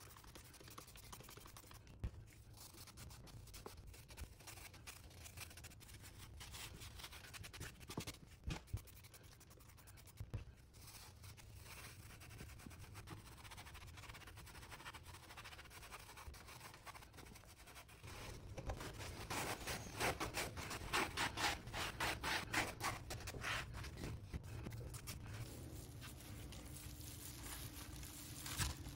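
Gloved hands handling and scraping the old wooden boards of an ice cream freezer lid, with scattered light knocks, then a spell of quick, even scraping strokes, several a second, about two-thirds of the way through.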